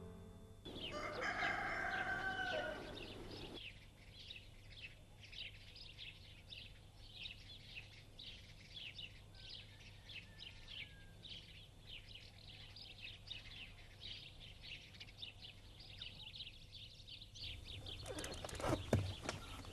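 A rooster crows once about a second in, followed by small birds chirping busily and continuously. A few sharp knocks and clatters come near the end.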